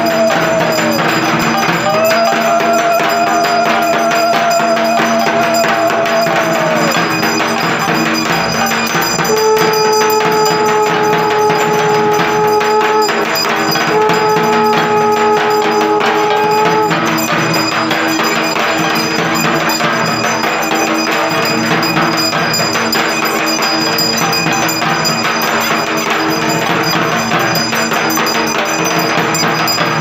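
Puja bells ringing and percussion clattering continuously, with a long held horn-like tone a couple of seconds in and two more in the middle.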